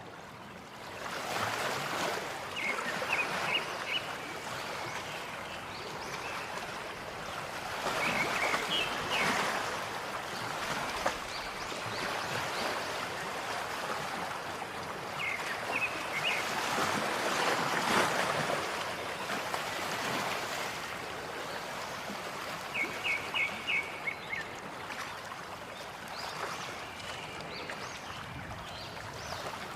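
Flowing water, a steady rushing that swells and eases every few seconds. Four short runs of quick, high chirps sound over it.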